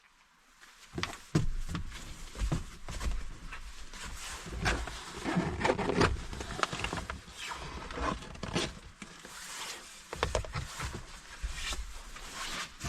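Rustling and handling noise with many irregular sharp clicks and knocks.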